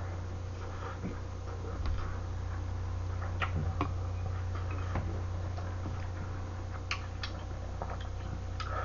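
Chopsticks clicking and tapping against a saucepan, with scattered sharp clicks, as they stir and lift noodles and rice cakes. A steady low hum runs underneath.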